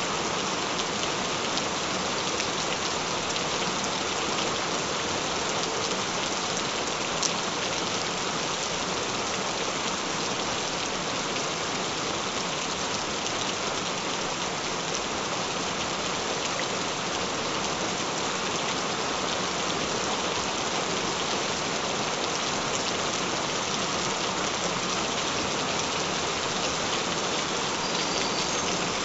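Gentle rain falling steadily, an even hiss of drops with one sharper tick about seven seconds in.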